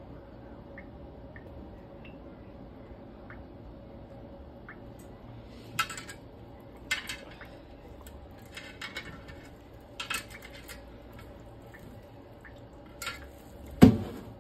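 A raw seasoned turkey being handled in a roasting pan: a few short knocks and rattles of the pan, then a heavier thump near the end as the bird or pan is shifted.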